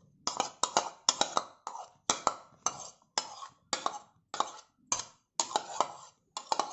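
Steel spoon scraping and knocking against a plastic chopping board as chopped raw mango pieces are pushed off into a glass bowl: a quick, irregular series of short scrapes and knocks, about two a second.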